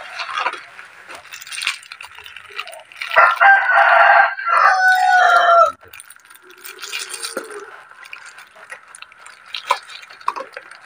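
A rooster crows loudly about three seconds in, one call lasting about two and a half seconds. Around it is the crinkle and rustle of plastic packaging being handled.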